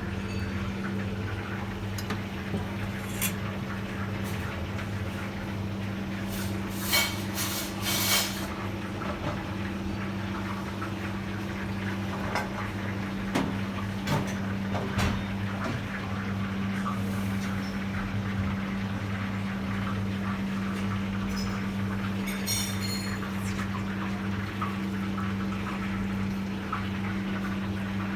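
Kitchen sounds: a steady low hum with scattered clinks and clatters of dishes and utensils, loudest about seven to eight seconds in and again near twenty-two seconds.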